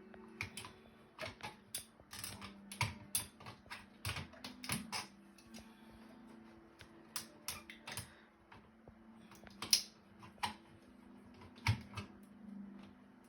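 Irregular clicks and light knocks of a plastic smoke detector being handled and fitted back against the wall, over a steady low hum.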